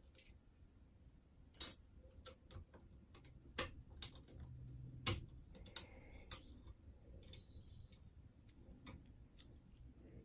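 Scattered sharp metallic clicks and taps, about six spread out, as the levers and parts of a dismantled 5-lever mortice lock are handled and lifted out.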